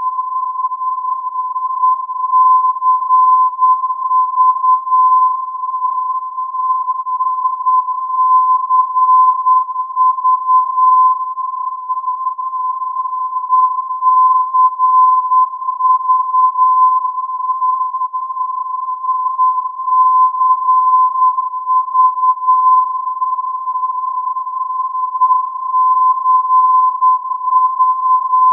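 Colmenar 'ECV' non-directional beacon on 319 kHz AM, received on a radio: its 1020 Hz modulation tone sounds as one steady pure tone. The tone grows louder in groups of short pulses every few seconds, which is the beacon keying its Morse identifier ECV.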